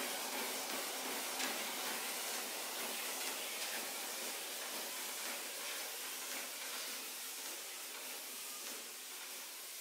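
Lifelong FitPro LLTM09 treadmill running with someone walking barefoot on the belt: a steady hiss of motor and moving belt with faint soft footfalls, slowly getting quieter.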